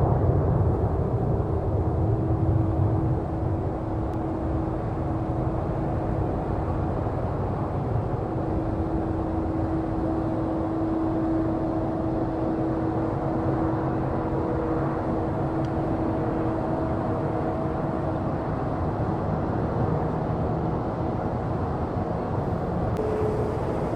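Airbus A330 twin jet engines on departure, a steady low rumble with a faint hum, slightly louder in the first few seconds and then even.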